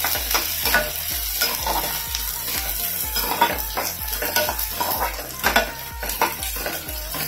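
Sliced onions, green chillies and garlic sizzling in hot oil in a metal kadhai, with a ladle scraping and stirring them around the pan in irregular strokes. The onions are being fried until their rawness is gone.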